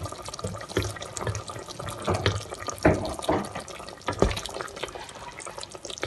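Wooden spatula stirring a wet meat and tomato curry in an aluminium pressure-cooker pot, with liquid sloshing and bubbling and several sharp knocks of the spatula against the pot, the loudest about three and four seconds in.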